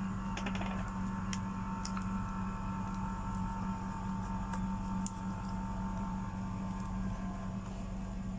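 An electric motor running steadily, with a low hum and a thin steady whine over it, and a few light clicks.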